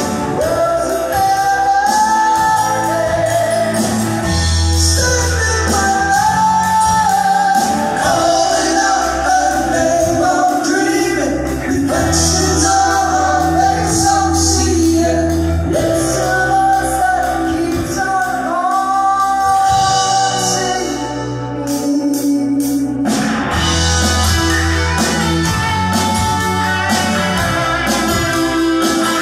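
Live rock band performing: a lead vocalist sings over drums, bass, keyboards and guitar, heard from the audience in a large hall. About three-quarters of the way through, the drums and bass drop out briefly, then the full band comes back in.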